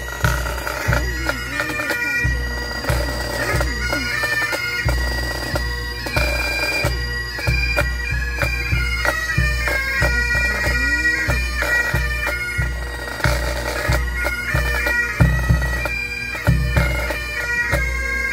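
Pipe band playing: Highland bagpipes with steady drones under the chanter melody, and a bass drum beating time with regular low thumps.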